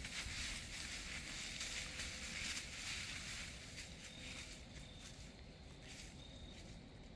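Dry fallen leaves rustling, dying down about four seconds in, over a low steady rumble.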